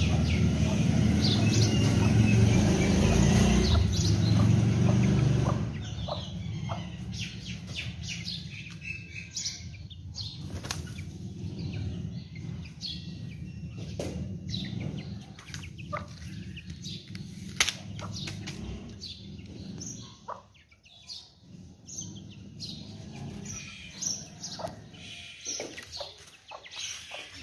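Free-ranging hens and young chickens foraging on dry ground, with scattered short chirps and clucks among small ticking and scratching sounds. For about the first five seconds a louder, low rumbling noise covers them, then it drops away.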